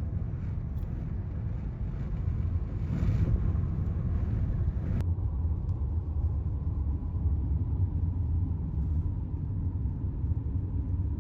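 Steady low rumble of a car's engine and tyres heard from inside the cabin while driving, with a brief swell of hiss about three seconds in.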